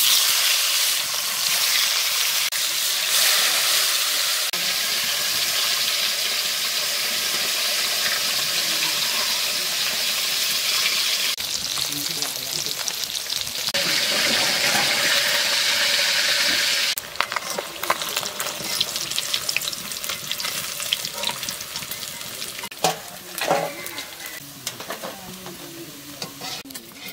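Food frying in hot oil in a pan, a loud steady sizzle. About two-thirds of the way through it drops abruptly to a lighter crackling with scattered clicks and taps.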